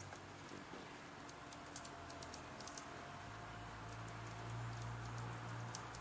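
Red-breasted sapsucker pecking at its sap wells in tree bark: light, irregular clicking taps, bunched about two seconds in and again near the end. A low steady hum comes up in the background about halfway through.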